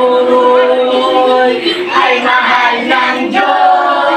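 A group of children singing a song together with a young man leading, in unison with long held notes.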